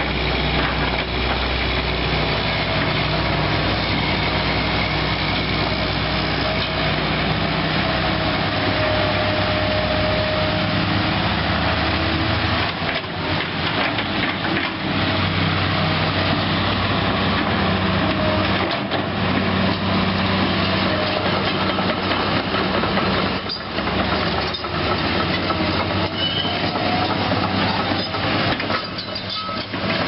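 Link-Belt 3400 crawler excavator running and moving on its steel tracks: a steady diesel engine note under clanking track links, with squeals that rise and fall in stretches.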